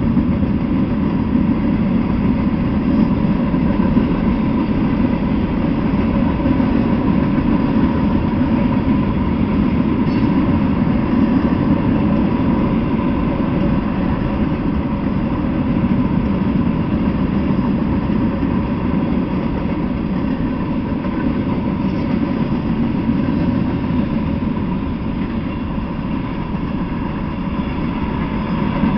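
Freight train cars, flatcars and covered hoppers, rolling past on the rails: a steady, loud rumble of steel wheels on track.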